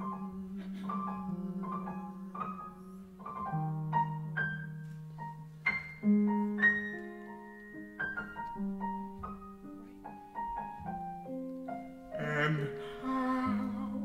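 Jazz grand piano playing a slow instrumental passage, single notes and chords struck and left to ring, over a sustained low note, with a denser swell of sound near the end.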